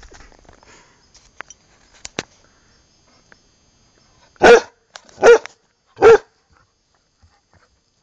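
Bearded collie barking three times while playing, the barks evenly spaced a little under a second apart, with a couple of faint sharp clicks before them.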